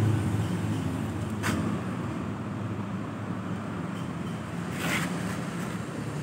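Vespa two-stroke single-cylinder engine idling steadily while its carburettor is set up for an RXZ reed valve. Two short hissy sounds come about a second and a half in and again near five seconds.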